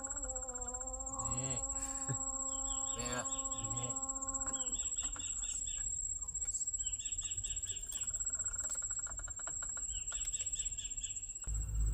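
Night insects by the river: one steady, high-pitched trill, with short runs of rapid chirps repeating every second or two. Background music fades out about four seconds in, and a low rumble starts near the end.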